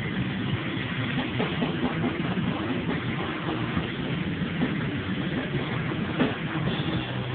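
A live band playing loud, distorted heavy music: a dense, steady wash of sound with held low notes. The highs are cut off by the phone recording.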